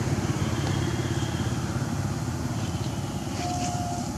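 A motor vehicle engine idling steadily, easing off slightly towards the end, with a brief thin whistle near the end.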